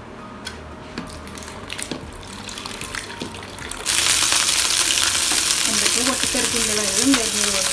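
Small shallots sizzling in hot oil in a frying pan and being stirred with a spatula; the loud sizzle starts suddenly about four seconds in. Before it, faint clicks and water sounds from a hand pump drawing water from a large drinking-water bottle.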